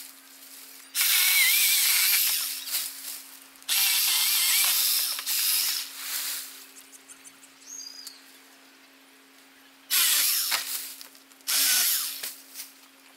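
Greenworks 40V cordless electric pole saw running its 8-inch chain through a queen palm frond in four bursts: two longer ones early on and two short ones near the end.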